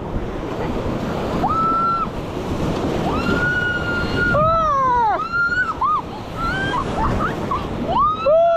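Whitewater of a grade 3 rapid rushing and splashing around an inflatable raft, with wind on the microphone. Over it the rafters let out long, high held screams and whoops, some falling in pitch.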